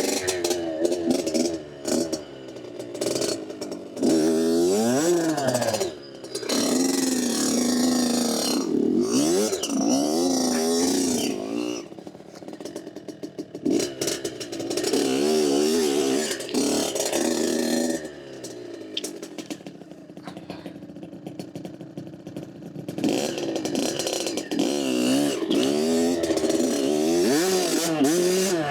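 Dirt bike engine being ridden, revving up and down again and again, its pitch rising and falling with the throttle and gear changes. It drops quieter for a few seconds past the middle, then comes back up.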